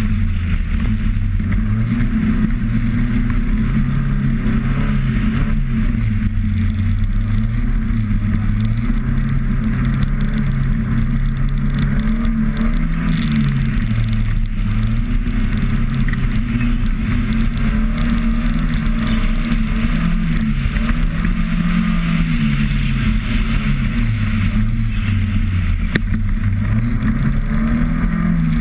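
Car engine repeatedly revving up and dropping back as the car accelerates out of turns and lifts off into the next ones, over a steady rushing hiss.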